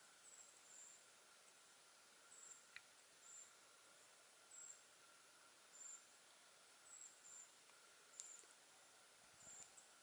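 Faint, thin, high-pitched chirps from a small bird, repeated about once a second, over a very quiet background with a faint steady tone.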